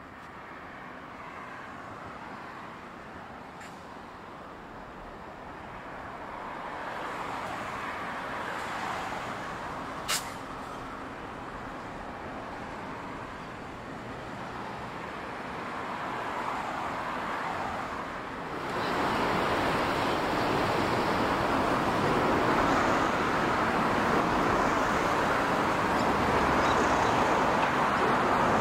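A passenger train rolling slowly by, with steady wheel-on-rail noise and a single sharp click about ten seconds in. About two-thirds of the way through, the sound jumps to a louder, steady rumble as NR class diesel-electric locomotives approach hauling the train.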